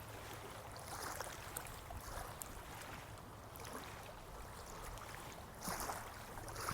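Faint flowing water, a stream running steadily.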